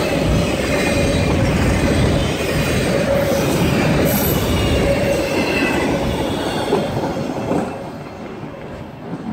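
A train rolling past, its wheels making a dense rumble with a steady squeal over it. The sound fades over the last second or two.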